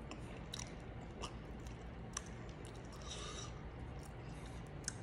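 Faint chewing and wet mouth clicks of someone eating ogbono soup with a swallow by hand, with a brief hiss about three seconds in.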